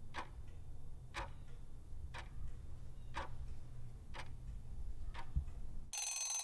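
Quiz countdown timer sound effect ticking once a second over a low steady hum, then a buzzing alarm starts near the end as the countdown runs out.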